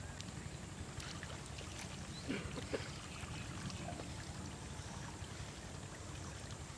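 Pond water splashing and dripping as a multi-pronged fishing spear carrying a speared snakehead is pulled up through water hyacinth, with a couple of sharper splashes a little over two seconds in. A steady low rumble runs underneath.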